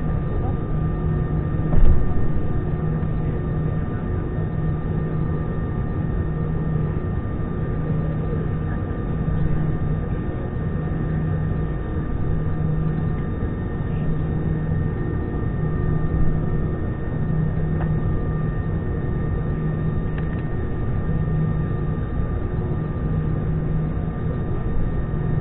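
Airbus A320-214 taxiing on its CFM56 engines at idle, heard inside the cabin: a steady rush with a thin high whine and a low hum that swells and fades about once a second. A single brief thump about two seconds in.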